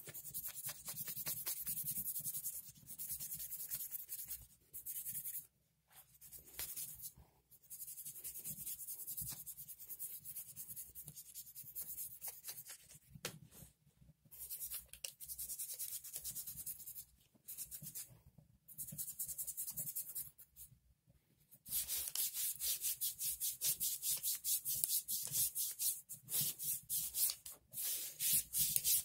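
An oiled cloth rubbed back and forth along the rusty steel barrel of an air rifle to clean off the rust, giving a scratchy rubbing sound. It comes in quick strokes with brief pauses, and the strokes turn faster and louder near the end.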